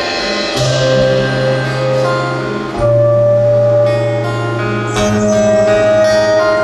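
Live Korean traditional-style ensemble music with plucked strings over long held bass notes that change about every two seconds, and a sustained melody line above them.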